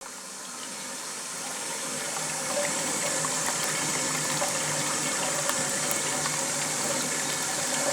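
Water running steadily from a leaking toilet cistern into the bowl, fading in over the first two seconds or so.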